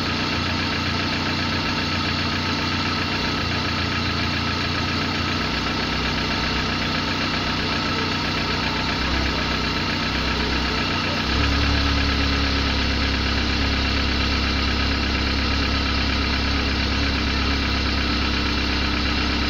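Car engine idling unevenly with an annoying noise, the unstable running the owner complains of. About eleven seconds in, its low hum steps up and becomes louder and steadier.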